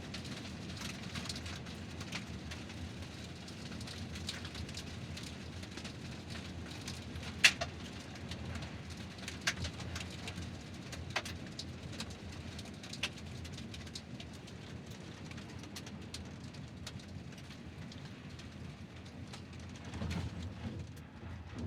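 Car tyres rolling over gravel: a steady low rumble with scattered sharp clicks of stones crunching and pinging, one loud crack about seven seconds in. The rumble swells briefly near the end.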